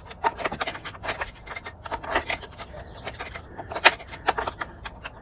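Irregular metal clicks, clinks and scrapes of a wrench and small parts as a nut is worked off an outboard motor's carburetor mounting. The sharpest click comes about four seconds in.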